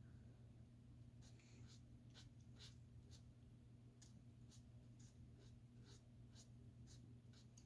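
Faint, quick strokes of an Ohuhu art marker on paper, about two a second, laying down short stripes, over a steady low hum.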